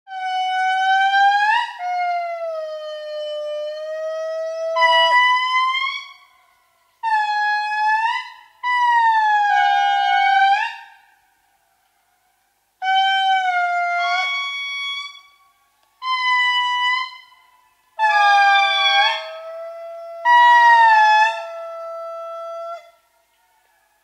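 Lemurs giving a series of long, wailing calls, each one to several seconds long, rising and falling in pitch, with short silent gaps between them. Near the end two calls overlap.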